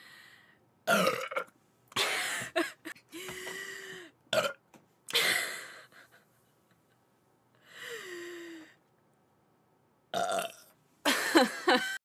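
A woman belching repeatedly: a string of separate burps, short and long, several drawn out, one held on a steady pitch and one sliding downward in pitch near the middle, after drinking canned cola.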